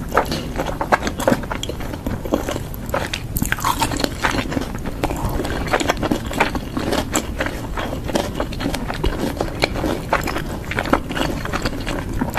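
Close-miked chewing and lip-smacking: a dense, irregular run of small wet clicks and crunches from eating.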